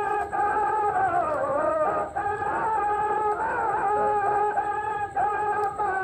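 A voice singing a Sindhi molood, drawing out long held notes that bend and waver in pitch, with short breaks between phrases.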